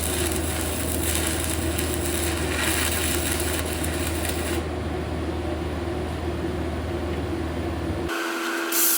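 Engine-driven welder running steadily under the broad hiss of welding work. The sound changes abruptly about four and a half seconds in and again about eight seconds in.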